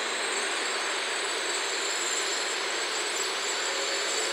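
N700-series Shinkansen train running past, a steady rush of wheel and running noise with a faint high-pitched whine on top.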